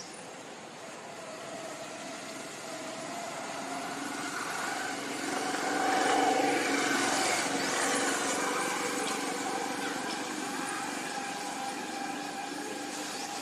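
A motor vehicle passing by: its steady engine hum grows louder to a peak about six seconds in, then slowly fades.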